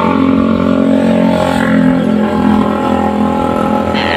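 Motorcycle engine running steadily at a constant pitch.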